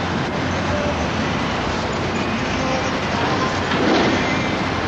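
Steady outdoor city noise with faint, scattered voices, swelling briefly louder about four seconds in.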